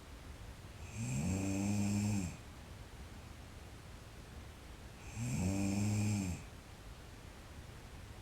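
A woman snoring in her sleep: two long snores about four seconds apart, each rising in pitch at the start and then holding a low, steady tone.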